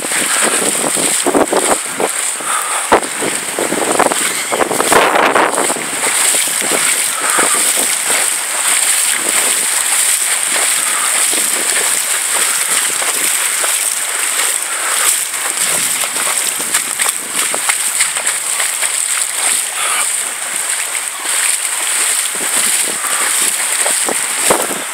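Storm wind gusting through tall pines and buffeting the microphone over a steady hiss of rain, with water sloshing as someone wades through flooded ground.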